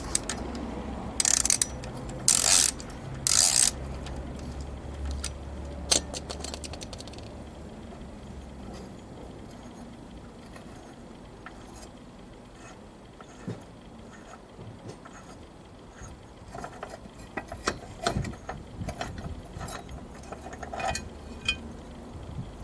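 A ratchet wrench clicking, with three short loud bursts of ratcheting in the first few seconds and a faster run of clicks a little later. After that come scattered ticks and knocks of tools on metal.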